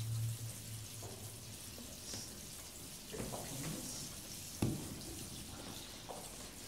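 Water running and trickling in a stone baptismal font, a faint steady splashing hiss, with low murmurs and a single short knock a little past the middle.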